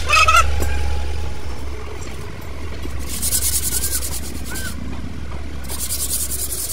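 Rapid, hissy metal scraping as a drum-brake shoe is worked against the brake backing plate. It comes in two spells of about a second and a half each, starting about three seconds in, over a steady low engine rumble.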